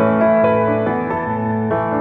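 Background music with slow, held chords that change every half second or so.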